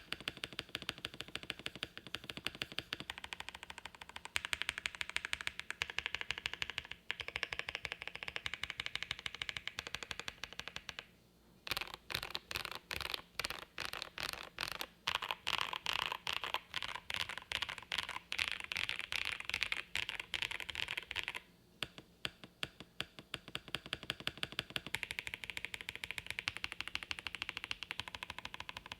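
Fast continuous typing on a Jelly Epoch gasket-mount mechanical keyboard with lubed Holy Boba tactile switches on a polycarbonate plate, no case foam, and GMK keycaps: a dense run of keystrokes with a thock-pop character. The typing stops briefly twice, about a third of the way in and again about two thirds in.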